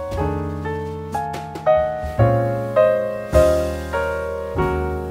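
Background piano music: a slow melody of single notes struck about every half second, each fading, over held bass notes.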